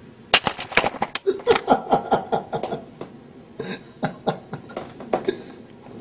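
A cat batting at a small plastic toy robot at close range. A burst of sharp knocks and rattling starts about a third of a second in, comes several times a second, and thins out after about three seconds, with a few more knocks near the end.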